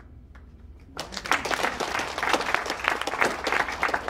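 Audience applauding: a burst of clapping from many hands that starts suddenly about a second in and begins to thin out near the end.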